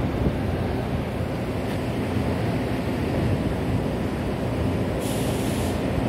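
Steady low engine rumble of a ship under way, with a held hum and the rush of wind and water; a brief hiss about five seconds in.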